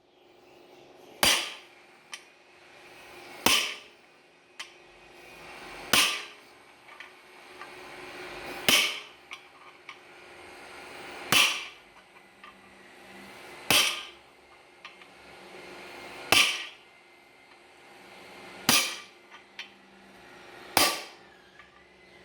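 Hammer blows driving a 6205 ball bearing into its seat in a washing machine's bearing crosspiece: nine sharp metal strikes about every two and a half seconds, with a few lighter clicks between them, tapping alternately at the sides until the bearing goes home.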